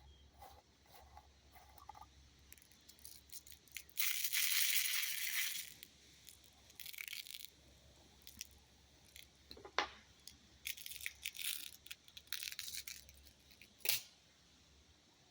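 Steel BBs and small metal cartridge-shaped BB holders being handled. A rattle lasting about a second and a half comes about four seconds in, followed by a shorter rattle, then scattered sharp clicks and light clatter.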